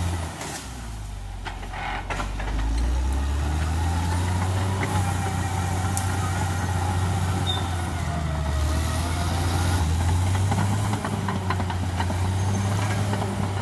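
Cat D6R XL bulldozer's diesel engine running under load. It eases off about half a second in, then picks up again after about two seconds, with a few scattered knocks.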